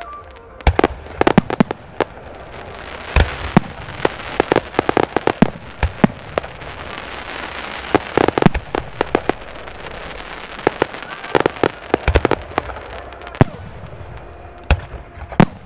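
Aerial fireworks show: shells bursting overhead in a rapid, irregular series of sharp bangs, some in quick clusters, over a steady crackling hiss.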